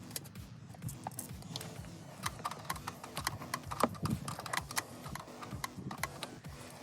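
A run of irregular sharp clicks and knocks, densest and loudest in the middle, over steady background music.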